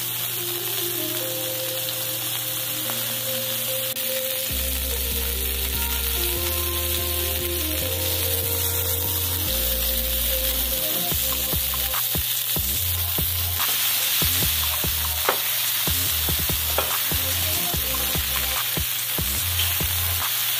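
Ground-beef slider patties sizzling steadily on a hot electric griddle. Scattered short sharp clicks come in the second half, with background music playing underneath.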